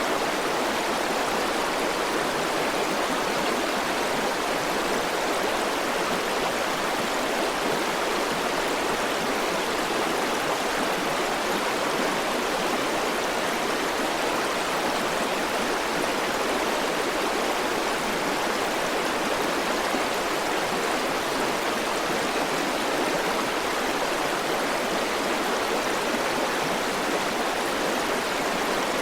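River water flowing steadily over rocks: an even rushing with no pauses or sudden sounds.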